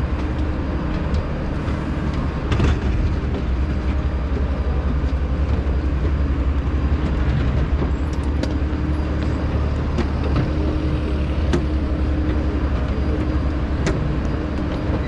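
Steady low mechanical rumble with a constant hum and a few sharp clicks.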